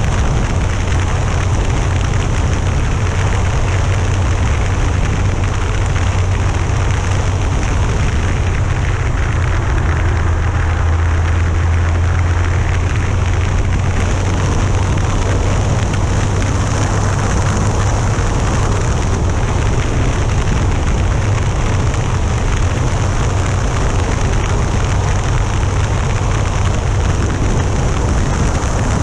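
Yamaha FJR1300A motorcycle under way at steady speed: the inline-four engine drones low and steady beneath loud, even wind rush on the microphone.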